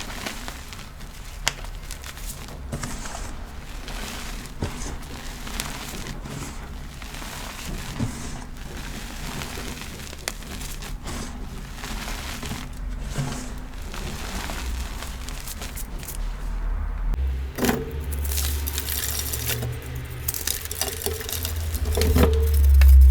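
Pressed chalky powder blocks being crushed and crumbled: a stream of small crisp crackles and crunches, growing denser and louder over the last few seconds.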